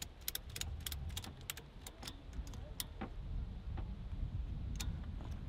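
Ratchet strap being tightened by hand: a quick run of sharp metallic clicks from the ratchet in the first second and a half, then a few scattered clicks, over a steady low rumble.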